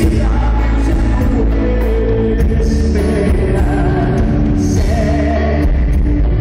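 Loud rock music with singing and a heavy bass line.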